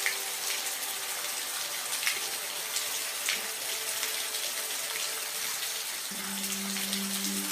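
Steady rain: an even hiss with individual drops ticking. Under it run faint held low notes, and a new lower note comes in near the end.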